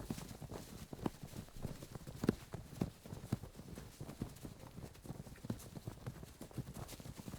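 Foley of movement across a battlefield: a dense, irregular run of short thuds and clacks, hoof-like or footfall-like, with the loudest knock a little over two seconds in.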